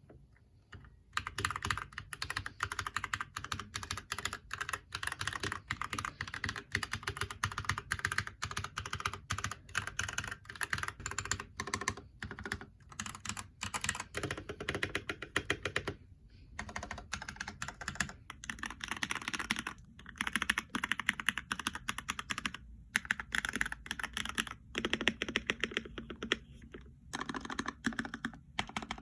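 Fast, continuous typing on a budget custom Redragon mechanical keyboard, key after key clacking, starting about a second in with a few brief pauses along the way.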